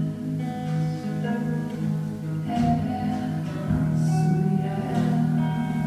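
Music: a guitar-led song, with plucked guitar notes over a low repeating note that settles into a held tone about two and a half seconds in.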